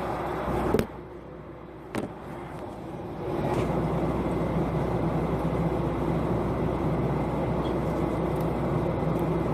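Steady airliner cabin noise in flight: a constant rush with a drone at a couple of fixed pitches. It drops suddenly to a quieter level about a second in, with a sharp click about two seconds in, and rises back to full strength after about three seconds.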